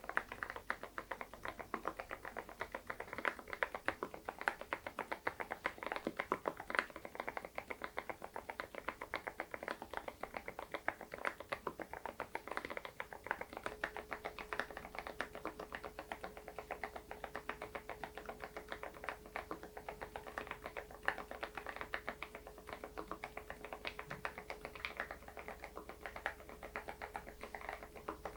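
Continuous fast typing on an SPM PL108W full-size mechanical keyboard with lubricated Moksae low-noise switches: dense, soft keystroke clicks with no pauses.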